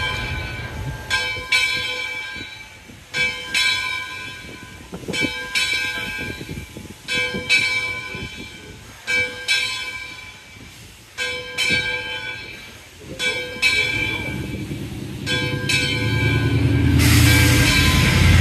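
Arcade & Attica No. 18, a 2-6-0 steam locomotive, rolling slowly with its bell ringing steadily, the strokes coming in pairs about every two seconds. A low rumble is loudest at the start, and a loud rushing noise swells up near the end.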